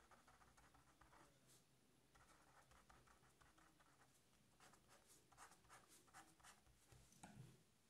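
Faint scratching of a pen on paper as a short heading is written out and then underlined, in separate short strokes with brief pauses between words.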